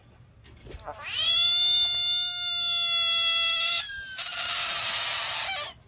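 Frog's distress scream. One long, high wail rises at its start and is held level for nearly three seconds, then a shorter, harsher, raspy cry follows.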